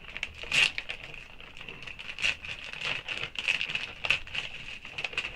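Plastic wig packaging crinkling and rustling as it is opened by hand, with irregular sharp crackles.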